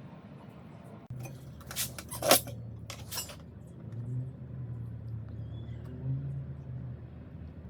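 Metal parts clinking and knocking, a few sharp clinks about two to three seconds in, over a low hum.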